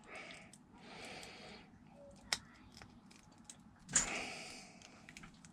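Small plastic Lego pieces being handled: soft rustles, one sharp click a little over two seconds in, and a louder rattle of pieces about four seconds in.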